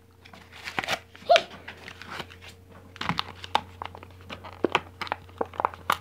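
Plastic packaging crinkling as hands handle and open it, in scattered short crackles and clicks, over a faint steady hum.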